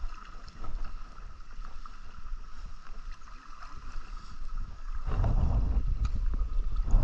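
River water swishing and sloshing around a man's legs as he wades in the shallows, laying out a gill net. About five seconds in, wind starts rumbling on the microphone and becomes the loudest sound.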